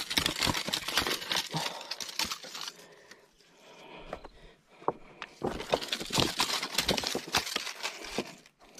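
Shoes and gear crunching and scraping over riprap rocks in close crackly clatter, in two stretches: the first three seconds, then again from about five and a half seconds until shortly before the end.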